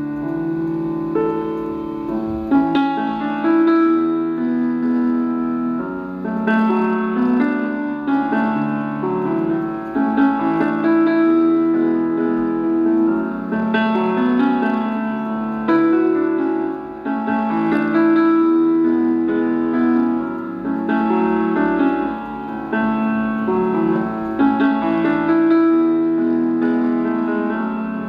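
Background piano music: a gentle melody of held notes in repeating phrases.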